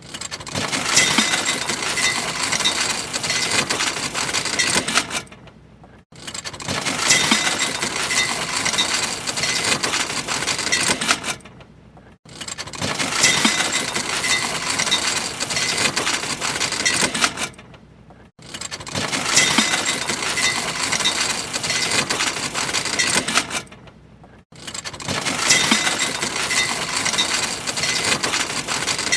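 Anchor chain rattling out fast as a boat's anchor is dropped, heard close to the chain. It is a dense metallic clatter with ringing links that runs about five seconds, then tails off. This happens five times.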